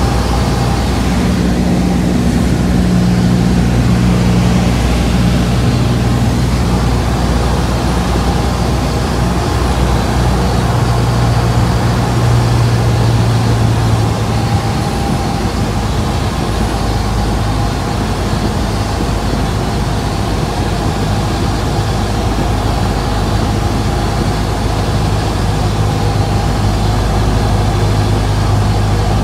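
Cabin drone of a light single-engine propeller airplane's piston engine and propeller, mixed with airflow noise, on final approach. The engine note steps down a little about halfway through.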